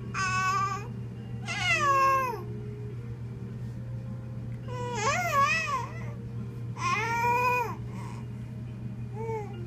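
A baby about two months old fussing and cooing as he soothes himself to sleep: four drawn-out wailing sounds, each about a second long, rising and falling in pitch, then a short one near the end.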